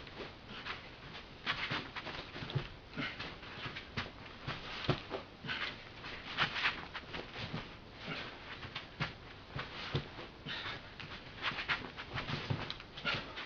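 Bare feet stepping, pivoting and shuffling on a carpeted floor with clothing swishing, in repeated quick rushes with a few soft thumps: the footwork and body turns of solo judo entry drills.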